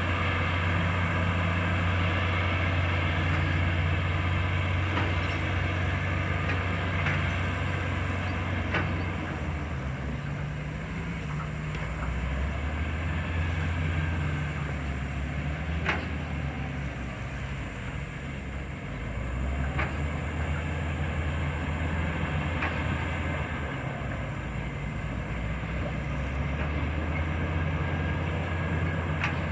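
Bulldozer's diesel engine running under load as the dozer pushes soil, its note easing off for several seconds mid-way and then building again, with a few sharp metallic clanks.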